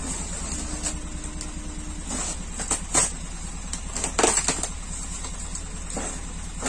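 Cardboard boxes being handled and shifted, with a few short knocks and scrapes, the loudest about three and four seconds in, over a steady low rumble.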